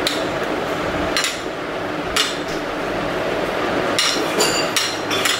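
Metal spoon clinking and scraping on a plate while mixing a cucumber, tomato and curd filling, over a steady hiss. The clinks come about a second apart, then four in quick succession near the end.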